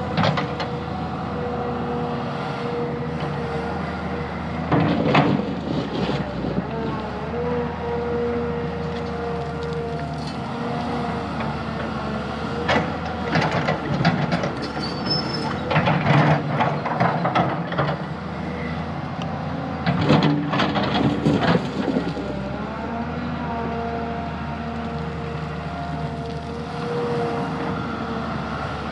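Diesel engine of a tracked excavator running steadily under load, with several bursts of metallic clanking and rattling from its steel tracks and bucket as it works the ground.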